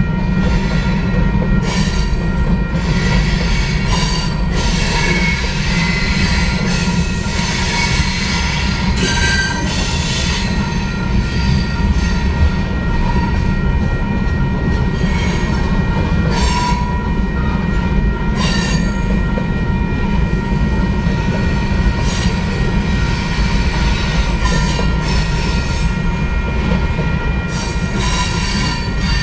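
Freight train of covered hopper cars rolling past: a steady low rumble of steel wheels on rail, with wheel squeal coming and going over it.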